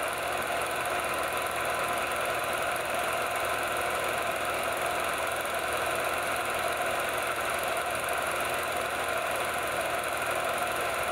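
Reel-to-reel film projector running, a steady, unchanging mechanical whir.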